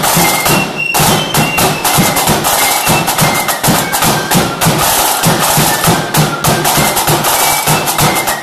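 Marching flute band playing: snare drums beating a fast, busy pattern over a bass drum, with flutes carrying a high melody above the drums.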